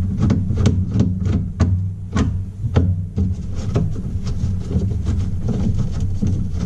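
A 6-way screwdriver turning the nut that holds a dishwasher's upper spray-arm assembly: irregular sharp clicks and knocks of tool against plastic and metal parts, two or three a second, over a steady low hum.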